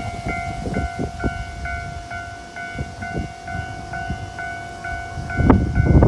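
Japanese level-crossing warning bell ringing in its steady repeating pattern, about two strokes a second, while a train rolls over the crossing. The wheels knock over the rail joints, and the knocking and rumble get louder about five and a half seconds in.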